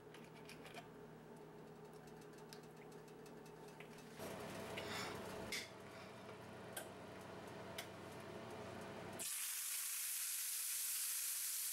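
Searing an eye of round roast in a hot cast iron skillet: faint crackling of the heating oil, then about nine seconds in the roast goes into the pan and a loud, steady sizzle starts.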